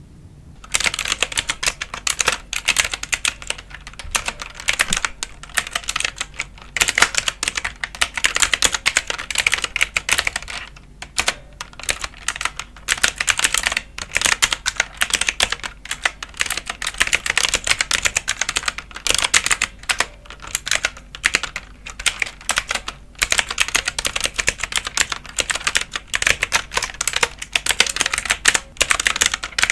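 Continuous fast typing on a computer keyboard: dense runs of key clicks, with brief pauses around a third and three quarters of the way through.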